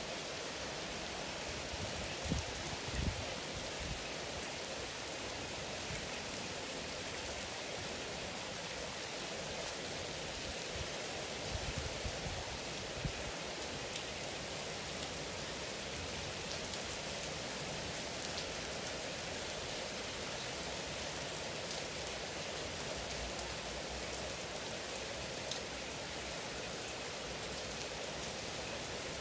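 Steady heavy rain falling, a continuous even hiss, with a few brief low thumps in the first few seconds and again around twelve seconds in.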